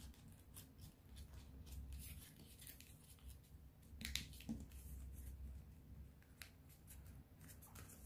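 Faint, crisp rustles and clicks of folded colour paper being pressed and handled as the pieces of an origami spinning top are squeezed into place, with one sharper crackle about four seconds in.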